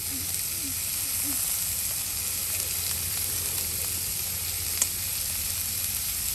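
Pork slices sizzling on the griddle of an electric mookata grill pan: a steady frying hiss. One sharp click sounds about five seconds in.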